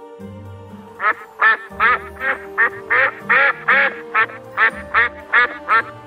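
A duck quacking in a run of about a dozen quacks, roughly two or three a second, over soft background music.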